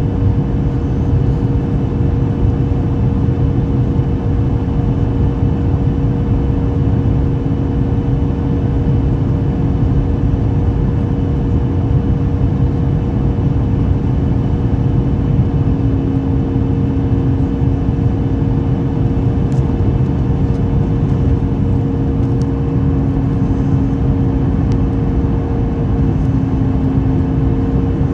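Cabin noise in a Boeing 737 airliner on final approach to landing: the jet engines' steady drone and the rush of air past the fuselage, with two steady hum tones.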